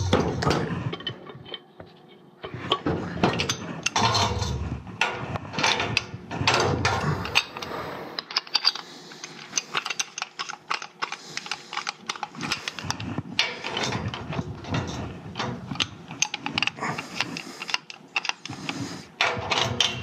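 Two pipe wrenches gripping and turning a threaded fitting on steam boiler piping, one holding back against the other: irregular metal clicks, ratcheting and scraping as the jaws bite and slip on the pipe.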